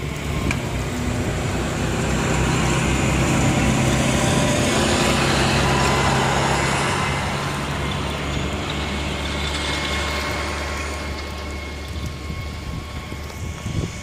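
A road vehicle with an engine hum driving past. It grows louder over the first few seconds, is loudest about five seconds in, and fades away by about eleven seconds.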